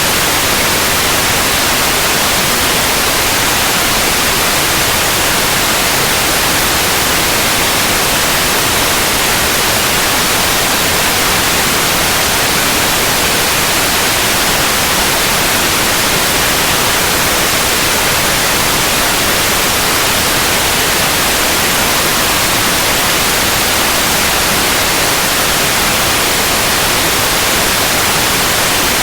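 Steady, unbroken white noise: an even hiss across all pitches, brightest in the highs, with no change.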